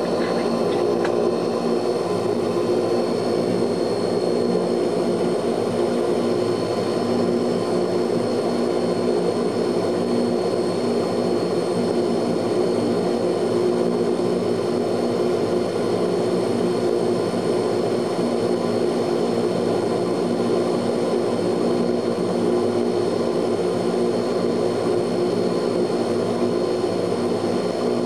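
Ilyushin Il-18's four Ivchenko AI-20 turboprop engines running steadily, heard inside the cabin: an even drone with a thin high whine above it.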